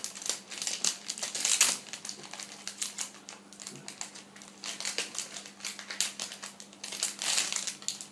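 Plastic toy packaging crinkling and rustling as it is handled and opened, in irregular crackles with the loudest bursts about a second and a half in and again near the end.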